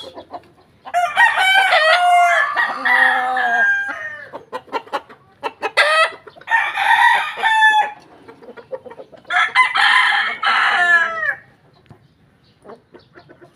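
Roosters crowing: three long crows, each about two seconds, a few seconds apart.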